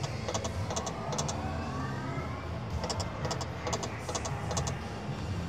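Konami All Aboard slot machine spinning twice at a losing bet: each spin ends in a quick run of reel-stop clicks, with a rising tone during the first spin, over a steady low hum.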